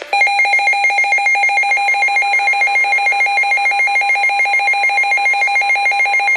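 Emergency alert tone announcing a flood warning on NOAA Weather Radio: a loud electronic alarm pulsing about seven times a second, with a faint steady tone beneath it. It starts abruptly.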